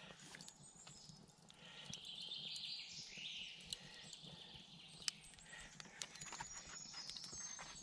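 Charcoal burning in a small folding steel Firebox stove, crackling faintly with a few scattered sharp pops.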